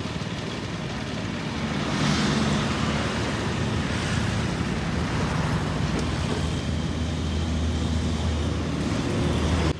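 Steady engine hum with road and wind noise from a vehicle on the move, with traffic passing close by; it cuts off suddenly near the end.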